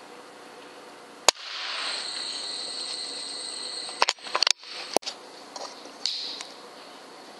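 A single sharp crack about a second in, an FX Impact .25 PCP air rifle firing. It is followed by a steady hiss and then a quick cluster of clicks and knocks about four to five seconds in.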